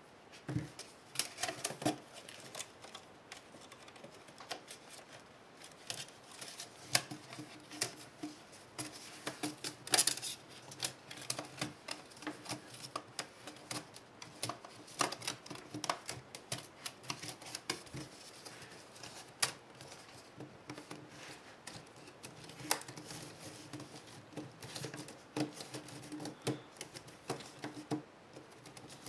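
Irregular clicks, taps and small snaps of a laptop's plastic case: the keyboard top case handled and its edge latches pressed into place.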